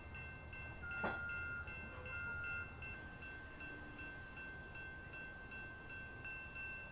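Electronic railroad crossing bell ringing in a fast even rhythm, about three strikes a second over steady high tones, with the strikes fading out about halfway through. A single sharp knock about a second in, and two short beeps in the first few seconds.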